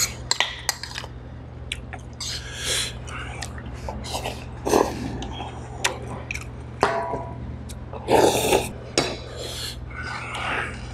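A metal spoon clinking and scraping against a bowl while someone eats, with short noisy bursts of slurping and chewing, the loudest about eight seconds in. A steady low hum runs underneath.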